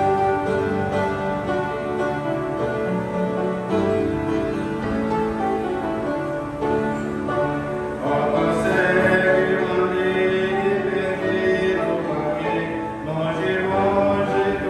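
A man singing a gospel hymn into a microphone, with keyboard accompaniment; the singing grows louder about eight seconds in.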